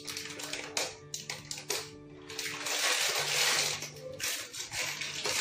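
Background music with steady held tones, joined by light clicks in the first two seconds and a hiss lasting about a second and a half in the middle.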